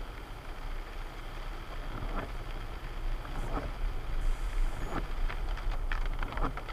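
Steady low rumble with a haze of noise, broken by scattered short knocks and squeaks.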